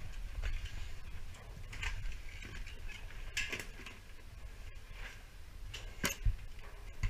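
Work gear and a slotted steel strut channel being handled: rustling with scattered light clicks and knocks, and a sharper knock about six seconds in, over a steady low rumble.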